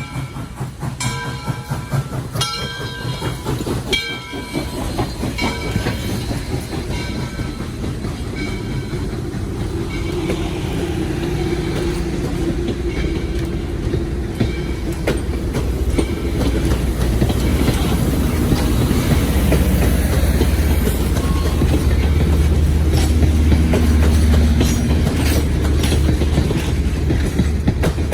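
Train hauled by Southern Railway steam locomotive 630 rolling past, with sharp clanks and clicks of wheels over rail joints at first, then a low rumble that grows louder toward the end.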